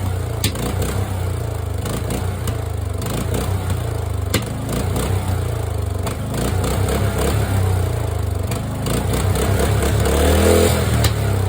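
Lawn mower engine running unevenly, with a few sharp pops of backfire as it shoots flames. Its speed rises near the end.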